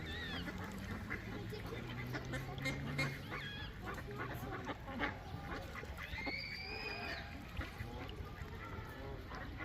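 A large flock of mallard ducks quacking and calling continuously, many short calls overlapping, with one longer, higher drawn-out call about six seconds in.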